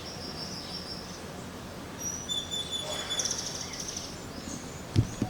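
Outdoor ambience with small birds chirping: a thin high call near the start, then several chirps and a short trill in the middle, over a low steady rumble. There is a soft bump near the end.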